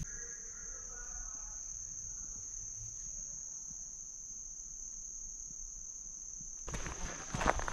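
A steady, high-pitched chorus of insects, holding one pitch without a break, in summer hardwood forest. Near the end, footsteps on the dirt trail come in over it.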